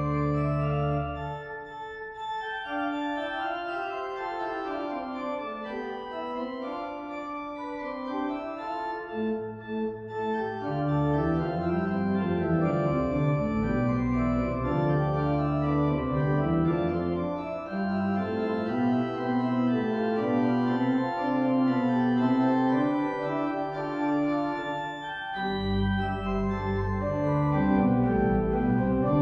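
Pipe organ playing several interweaving lines at once. The deep pedal bass drops out near the start and comes back in about nine seconds later, then stops briefly once more shortly before the end.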